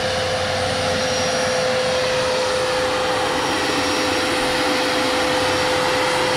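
Radio-controlled scale MD 600N helicopter flying low, a steady high whine from its motor and rotor drive holding one constant tone, growing a little louder as it comes closer.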